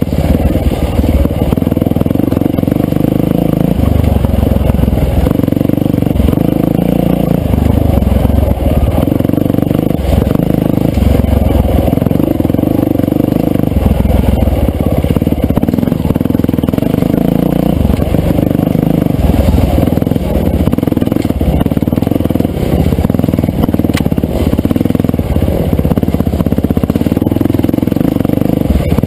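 Yamaha dirt bike engine being ridden hard, revving up and dropping back over and over as the throttle is opened and closed about every second.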